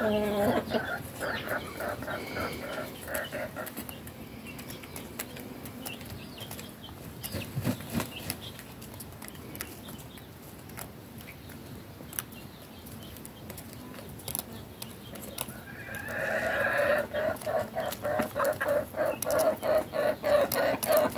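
Domestic chickens clucking in quick rhythmic runs, one run at the start and a louder one building from about three-quarters of the way through, with a rooster's crow trailing off right at the beginning. Between the runs, light sharp taps of beaks pecking bread crumbs on dry dirt.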